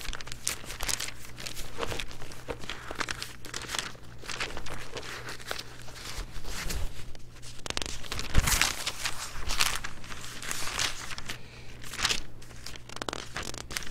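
Thin Bible pages being leafed through by hand: paper rustling and crinkling in a run of short, irregular flips while searching for a book of the Bible.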